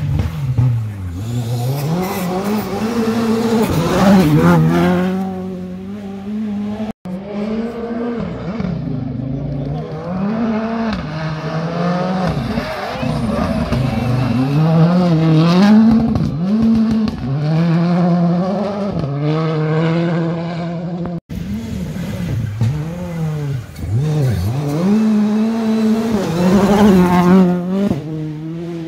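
Rally cars driven flat out past the spectators, their engines revving hard and dropping sharply at each gear change and lift, in three separate passes cut together.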